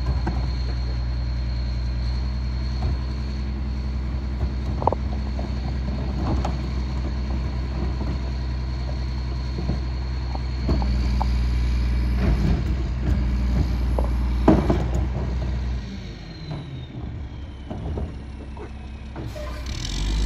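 Mack rear-loader garbage truck's diesel engine running at idle, with sharp metal clanks as cans are banged against the hopper. The engine speeds up about halfway through and drops back later with a falling whine, and a loud burst of hiss comes in right at the end.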